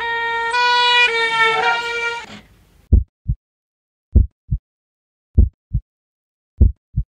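A horn-like pitched tone sounding in a run of short, steady notes that stops about two and a half seconds in. Then comes a heartbeat sound effect: low double thumps, lub-dub, about one beat every 1.2 seconds.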